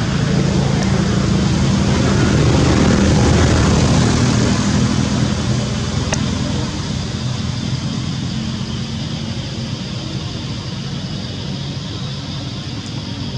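Steady engine rumble from a passing vehicle or aircraft, swelling about three seconds in and then slowly fading.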